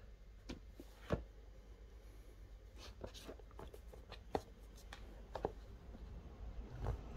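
Faint handling noise from a sunglasses box being turned over in the hands: scattered light taps and rustles, the sharpest about a second in.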